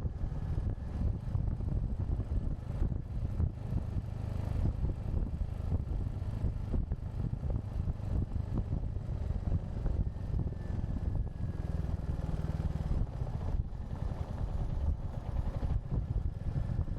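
Wind buffeting a windshield-less action camera's microphone on a moving Royal Enfield Hunter 350 motorcycle, largely drowning out the bike's single-cylinder engine running underneath. The noise is a steady, dense low rumble.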